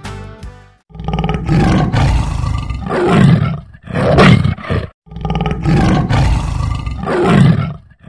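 Tiger roaring repeatedly, in two loud stretches of rough roars split by a short break about five seconds in. A few notes of music end just before the roaring begins.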